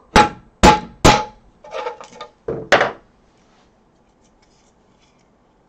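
Mallet knocking a freshly printed PLA part loose from a 3D printer's glass bed: three sharp strikes about half a second apart, then a few softer knocks and one more loud one, after which it goes quiet.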